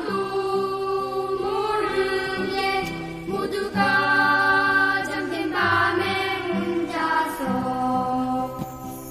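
Music: a slow melody in long held notes over steady, sustained bass notes.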